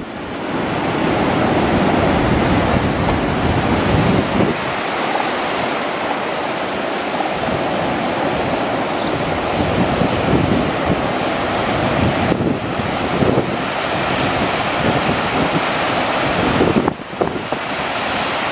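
Ocean surf breaking on rocks and washing over them: a continuous rush of foaming waves.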